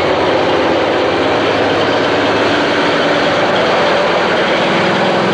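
Semi-truck's diesel engine running steadily at low speed as the truck rolls slowly past close by.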